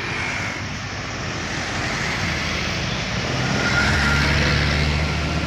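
Road traffic passing, with tyre and engine noise building as a small pickup truck passes close. Its low engine drone is loudest about four seconds in.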